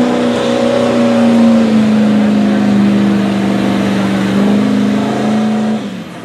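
Diesel work truck's engine running flat out under load, pulling a weight-transfer sled. Its pitch sags about two seconds in, climbs again a little after four seconds, and drops away just before the end as the pull finishes.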